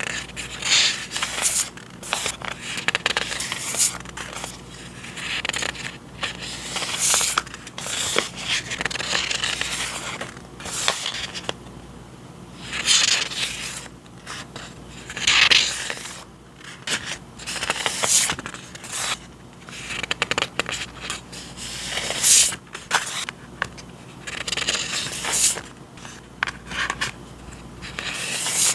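Paper and packaging being handled and unboxed: repeated rustling and scraping in bursts of a second or two, with crisp crackles.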